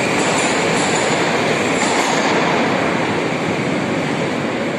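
Moscow Metro train running through the station: a loud, steady rumble of wheels on rails with a faint high whine over it.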